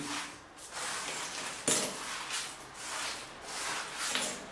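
Broken concrete and tile rubble being scraped and shifted by gloved hands inside a steel frame, in a string of short scrapes and clinks with one sharp knock a little before the middle.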